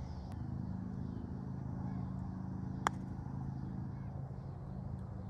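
A single sharp click of a putter striking a golf ball about three seconds in, over a steady low engine hum.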